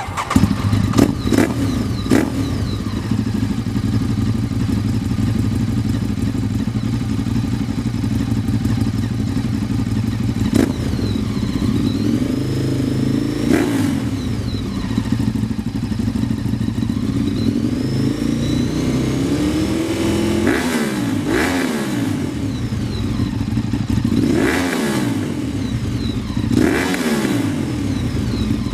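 A Ducati 848's L-twin engine through a Termignoni exhaust comes in sharply with a few loud cracks, then idles with its lumpy beat. In the second half it is revved several times, each rev rising and falling back to idle.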